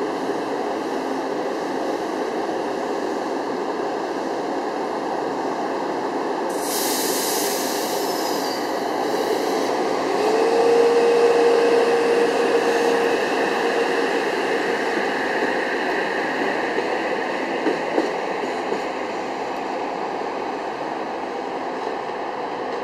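Metro-North M8 electric multiple-unit train moving along the platform, a steady rush of wheels and running gear. A burst of air hiss starts about seven seconds in and lasts a few seconds. Partway through, a single thin whine slides up and then holds steady for a few seconds, and a few sharp knocks come near the end.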